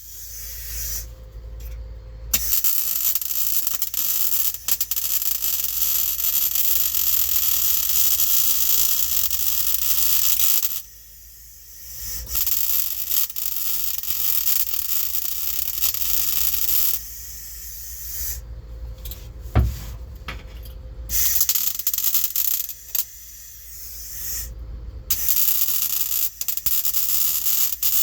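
Welding on the sheet-steel floor pan of a 1974 Chevrolet Nova: the arc crackles and hisses in runs of several seconds, with short breaks between the beads.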